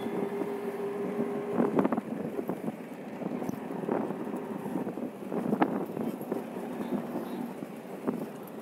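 Road traffic heard from a moving vehicle: steady engine and tyre rumble with wind buffeting the microphone, louder rushes about two, four and five and a half seconds in, and a steady tone for the first two seconds.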